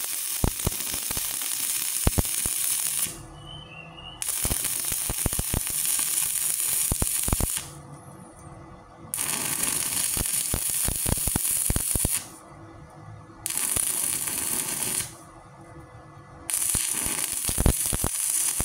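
Stick-welding arc from a 3.2 mm electrode at about 105 amps on a small 450-watt inverter welder: a loud crackling hiss with sharp spatter pops. The arc cuts out and starts again four times, each break lasting about a second.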